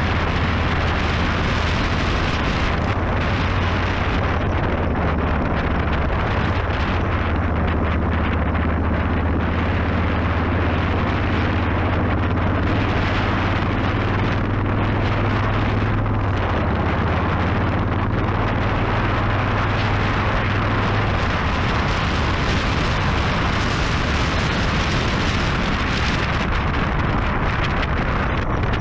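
Motorcycle engine running while riding at road speed, buried under heavy wind noise on the microphone. The engine's low note shifts pitch around the middle and sinks into the wind noise later on.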